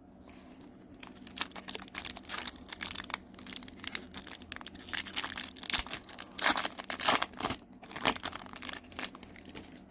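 Foil wrapper of a Pokémon TCG booster pack crinkling and tearing as it is handled and ripped open, a long run of irregular crackles.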